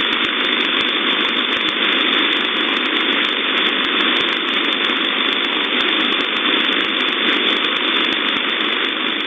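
Shortwave receiver hiss from an SDR in USB mode on 9266 kHz: steady band noise with faint crackles of static and no voice, the number station having signed off.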